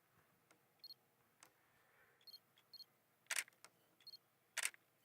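Digital camera sounds: short high focus beeps and small button clicks, with two loud shutter clicks, the first about three seconds in and the second about four and a half seconds in.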